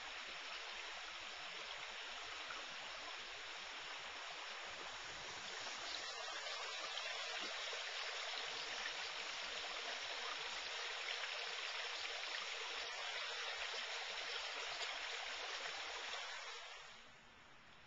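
Small woodland brook running over mossy rocks: a steady rush and trickle of water that gets a little louder about six seconds in and fades out near the end.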